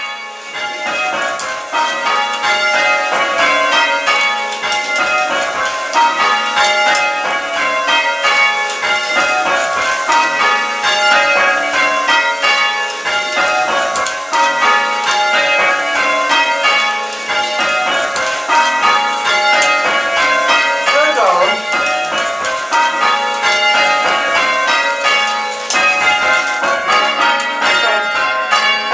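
Church bells being change-rung: a ring of tower bells struck one after another in a rapid, unbroken sequence, their tones overlapping continuously.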